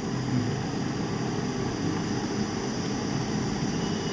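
Steady rushing airflow from a hot-air rework station blowing on a laptop motherboard to heat and lift off a shorted MOSFET.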